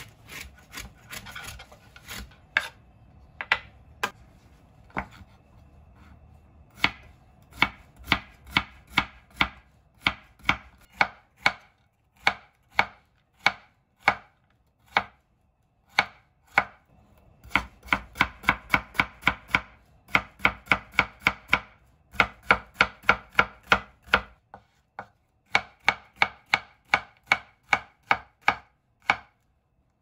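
Chef's knife slicing a halved bitter melon into thin crescents on a wooden cutting board: sharp knocks of the blade on the board in quick runs of about four a second, with short pauses between runs. In the first few seconds, a spoon scrapes the pith and seeds out of the melon with irregular clicks.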